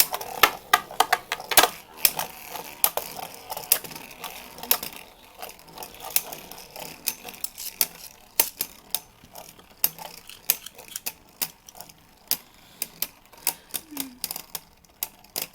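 Two Beyblade Burst spinning tops, Mirage Fafnir F6 and Glyph Dragon, battling in a plastic Speedstorm stadium: a whirring hiss and rapid, irregular clacks as the tops collide and scrape the stadium walls just after launch, the clicks growing sparser as the tops slow toward a survivor finish.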